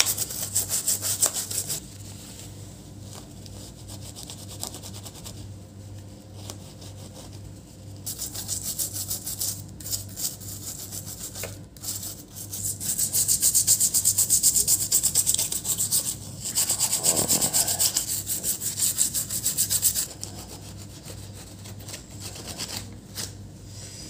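A small brush scrubbing a laptop motherboard with thinner: quick back-and-forth rasping strokes in spells, pausing for a few seconds after the opening stretch and starting again about eight seconds in. A steady low hum runs underneath.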